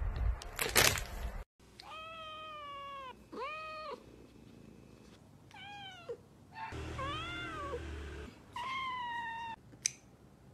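A crinkly plastic chip bag rustling briefly at the start, then a kitten meowing about six times, each meow a pitched call that bends up and down, some drawn out and some short.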